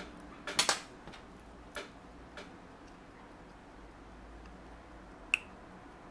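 Small sharp metal clicks of a watchmaker's screwdriver working a screw in a Rolex calibre 1556 movement. A quick cluster of clicks comes under a second in, single clicks follow about two and two and a half seconds in, and one sharp click with a brief ring comes about five seconds in.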